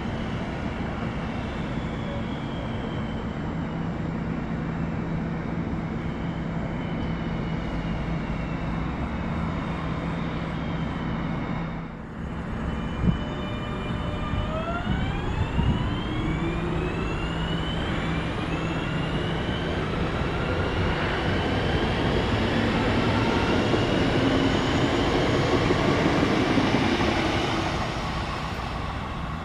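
Regional electric multiple-unit trains running through a station: a steady rumble with a low hum, then after a break the traction motors whine in several tones rising in pitch. A train grows louder as it approaches near the end.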